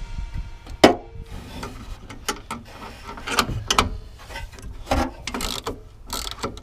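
Hand tools on the truck's front end: a ratchet wrench clicking between sharp metal clanks and knocks, the loudest just under a second in.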